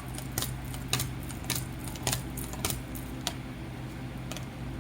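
Light, irregular clicks and taps, about a dozen over a few seconds, over a steady low hum.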